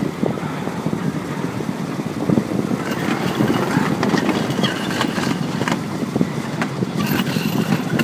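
Rollers of a long roller slide rumbling and rattling steadily under a rider sliding down fast.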